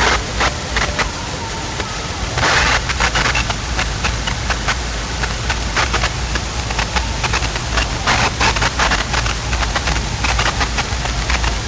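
Large outdoor DJ sound system played very loud during a sound check: a steady, deep bass that overloads the recording into a distorted rumble, with crackly noise on top that swells twice.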